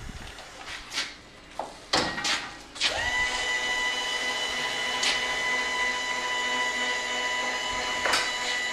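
A few knocks and clanks of metal being handled, then about three seconds in a small electric motor starts and runs with a steady high whine.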